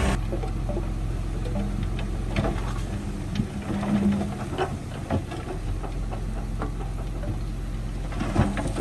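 Dump truck's diesel engine running steadily as its raised tipper bed unloads soil and stones. Scattered irregular knocks and clatters come from rocks tumbling down onto the pile.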